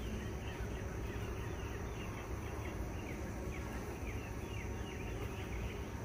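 Steady hum of honey bees around an opened hive, with rapid short chirps running through it.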